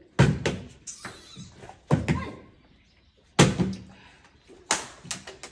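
Plastic water bottle flipped and landing on a tabletop: several sharp thuds about a second and a half apart.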